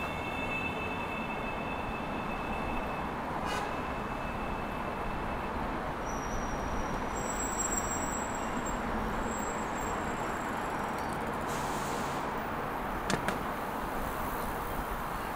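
Steady city road traffic noise heard from a bicycle, with faint high-pitched whines coming and going. Two sharp clicks sound close together near the end.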